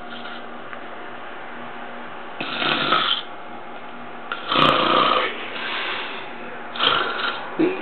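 A man snoring in his sleep: after a couple of seconds without a snore, about four irregular snores follow, the loudest about halfway through.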